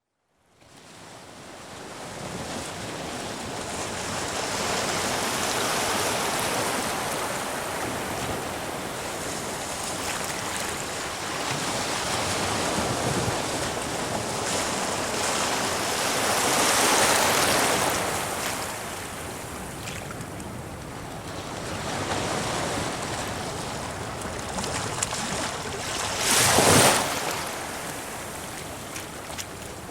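Sea waves surging and breaking against rocks, with washing foam, swelling and ebbing in slow surges. The loudest is a sharp crash about 27 seconds in, after a bigger swell a little past halfway.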